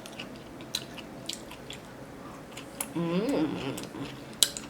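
Close-up chewing of food, with many sharp wet mouth clicks. About three seconds in there is a short hummed voice sound.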